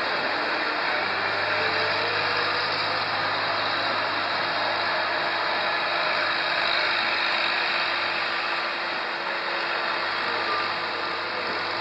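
Steady machine noise with a low hum, like an engine or motor running at idle; the hum fades about nine seconds in.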